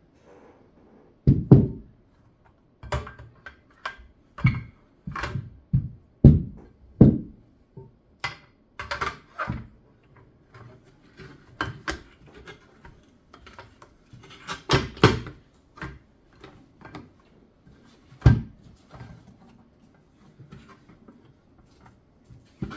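Irregular hard plastic knocks, thuds and scrapes as a washing machine door frame is prised open and the door glass is handled and slid into it.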